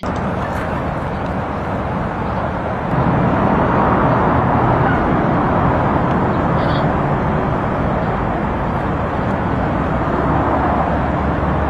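Steady outdoor street ambience: an even noise with a low rumble, which steps up in level about three seconds in.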